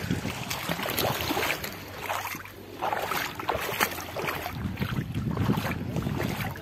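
Wind buffeting the microphone in uneven gusts, over the gentle lapping of shallow sea water against a pebbly shore.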